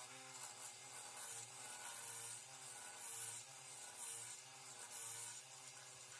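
Round carbide turning tool cutting a spinning Jatoba wood blank on a JET wood lathe, a scraping hiss that swells in repeated passes about once a second over the lathe motor's steady hum.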